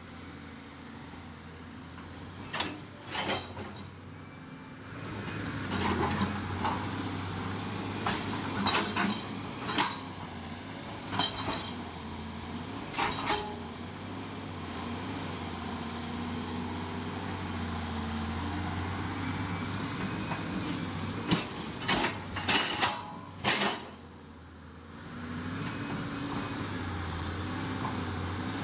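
A motor running with a steady low hum, with sharp knocks and clanks at irregular intervals over it, several in a quick cluster near the end. The motor's hum drops away briefly about two-thirds of the way through, then picks up again.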